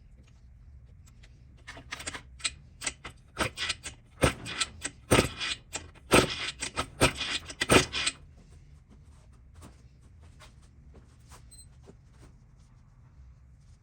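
Hand tools and small metal engine parts clicking and clattering on a workbench during a motor teardown: a quick, irregular run of sharp metallic clicks that builds over a few seconds and stops about two-thirds of the way through, leaving only a few faint ticks.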